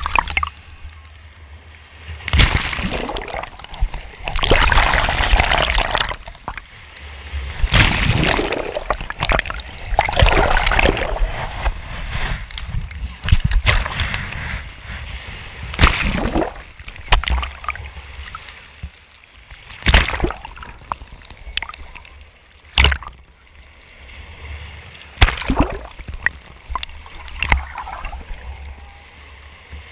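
Sea surf washing right over a camera held at the waterline: repeated surges of splashing and sloshing water every couple of seconds, with a few sharp, close splashes and quieter lulls between.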